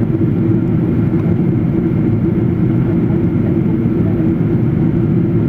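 Boeing 777 in flight: a steady low roar of engines and airflow with a constant droning hum, unchanging throughout.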